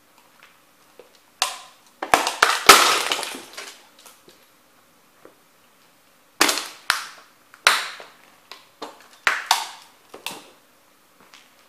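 Model train houses cracking and crunching as a Nike Air Max 90 sneaker stomps them flat. A dense burst of sharp cracks comes about a second and a half in, the loudest with a long crackle as one house gives way. A run of separate cracks and crunches follows from about six to ten seconds in.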